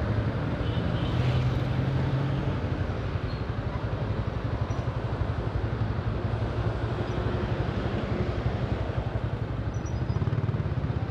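Steady road traffic: a continuous hum of passing vehicle engines, with jeepneys, cars and motorcycles on the street.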